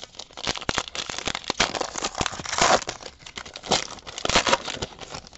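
Wrapper of a 2017 Diamond Kings baseball card pack being torn open and crinkled by hand: a dense run of irregular crackles and rustles.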